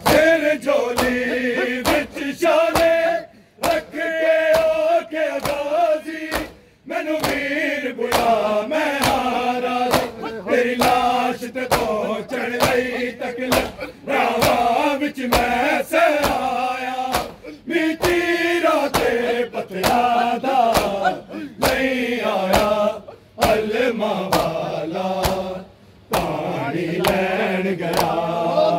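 A crowd of men chanting a noha together, over a steady beat of open-palm chest-beating (matam) slaps, with a few short breaks between lines.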